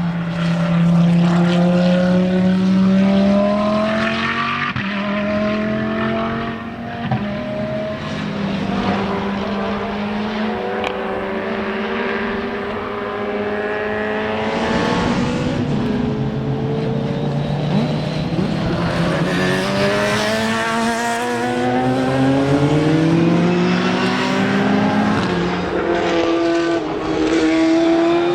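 Racing car engines at speed on a circuit, the engine note rising through each gear and dropping back at shifts and braking, over and over.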